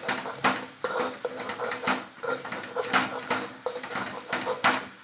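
A steel tambya (lota) is knocked and ground against a black kadhai, crushing fried green chillies and garlic with salt into thecha. Repeated metal-on-metal knocks and scrapes come about every half second to a second, with a few louder strikes.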